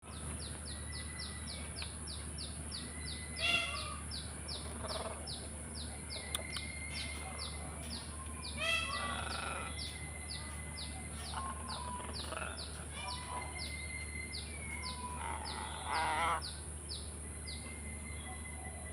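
Macaw giving loud, harsh squawks three times: about three seconds in, about nine seconds in, and a longer, rougher one near the end. Behind them runs a steady high-pitched buzz and a fast ticking call repeating about three times a second, with a few thin whistles from other birds.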